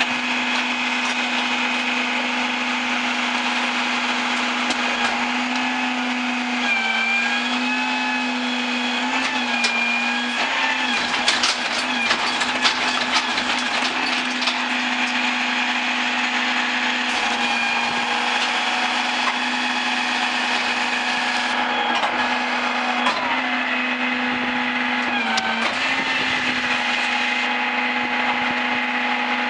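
Rear-load garbage truck's hydraulics working a dumpster: a steady, loud machine whine that wavers and dips in pitch twice as the load changes. A burst of knocks and clatter comes about 11 to 14 seconds in.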